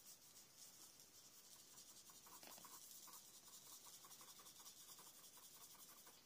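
Faint, quick back-and-forth scratching of a water brush pen's tip scrubbing over watercolour-pencil marks on paper, blending them into a wash.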